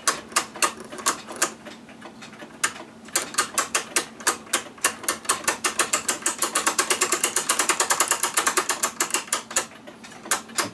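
Ratchet and click on a clock mainspring winder clicking as the mainspring arbor is turned. The clicks come at about three a second, quicken to about six a second and get louder midway, then slow and stop shortly before the end.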